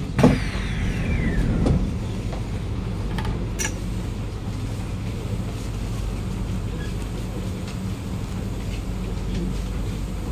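A Kawasaki-CRRC Sifang C151A metro train braking to a stop, its motor whine falling steadily in pitch over about a second and a half after a sharp knock near the start. Then a steady low hum with a few scattered clicks.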